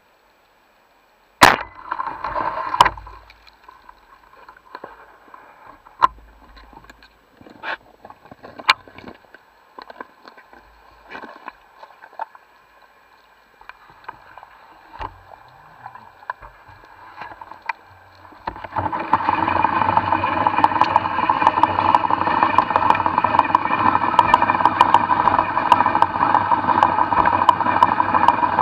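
Underwater recording: two sharp clicks about a second in and a second apart, then scattered faint clicks and knocks, and about eighteen seconds in a steady motor drone with a pitched whine comes in and keeps running, typical of a boat engine heard through the water.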